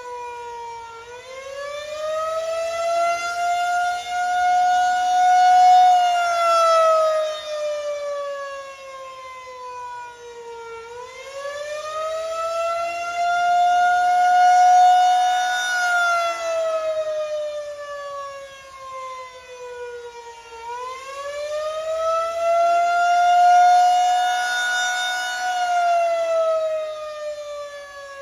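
Federal Signal 2001-SRN rotating electronic siren sounding its attack signal. One multi-toned wail climbs over a few seconds, holds, then slides back down, three times. It grows louder and softer as the slowly turning horn (6 RPM) sweeps toward and away.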